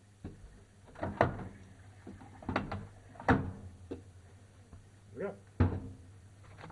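Front-loading washing machine on a wash cycle: a steady low motor hum with irregular knocks and thuds, about nine of them, as a zip-tied bag of plastic pieces tumbles against the drum.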